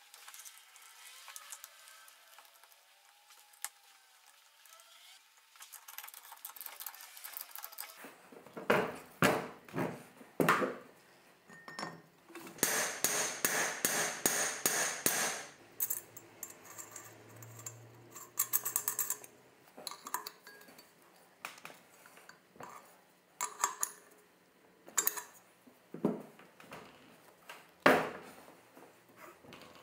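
Metal clinks and knocks of hand tools and metal parts being handled, starting about eight seconds in, with a quick run of rapid strokes lasting about three seconds in the middle.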